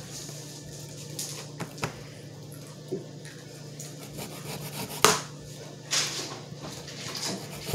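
Kitchen handling noises: a few light knocks and two brief, louder rubbing or scraping noises about five and six seconds in, over a steady low hum.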